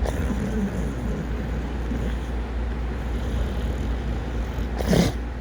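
Pit bull snoring: a steady low rumble, with one brief louder burst near the end.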